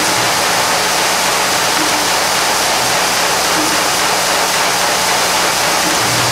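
A collated screw assembly machine running at full output, about 1,800–2,000 screws a minute, making a loud, dense, steady noise like rushing water, with a faint low hum underneath.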